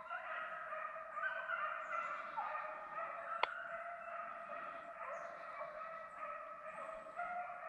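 A leashed beagle whining in long, high drawn-out cries with small steps in pitch. A single sharp click comes about three and a half seconds in.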